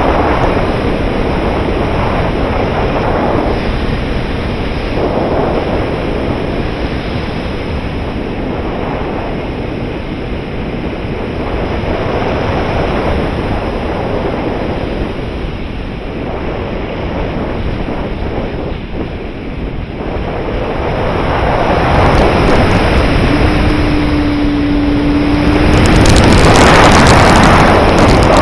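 Airflow rushing over the onboard camera of a 3.6 m RC glider in flight, swelling and easing with airspeed and loudest near the end. A brief steady hum runs for about three seconds shortly before the loudest part.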